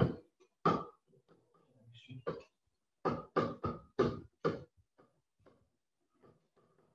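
A man's voice in short separate syllables, clustered in the middle, followed by a few faint ticks near the end.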